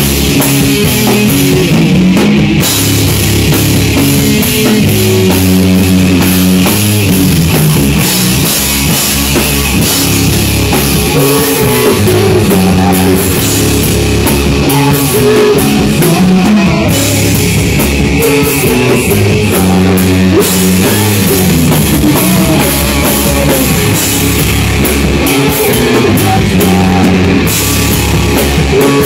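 Loud stoner rock played live by a band: electric guitar and bass riffing over a drum kit with crashing cymbals, carrying on steadily.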